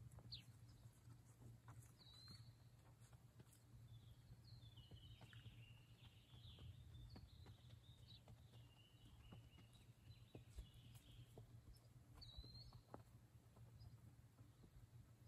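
Near silence: faint open-air ambience with a low steady hum and a few faint bird chirps, most of them in the middle of the stretch.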